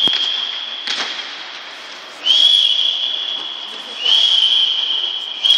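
A sports whistle blown in long blasts, each one high steady note that fades, sounding again about two, four and five and a half seconds in. Two sharp knocks come in the first second.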